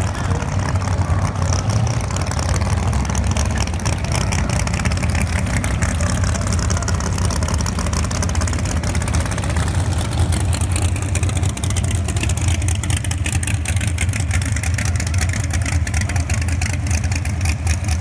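Drag-race car engines running loudly and steadily. Race cars run down the strip, with the pitch falling away in the first few seconds, then a race car's engine idles in the staging lanes with a heavy, uneven beat.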